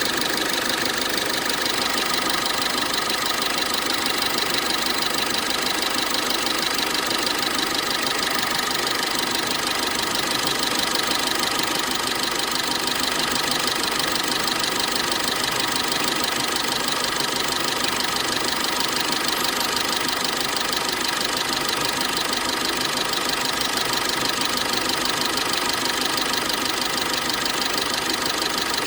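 Cummins ISF 2.8 turbo-diesel engine of a GAZelle van idling steadily, its accessory drive belt running.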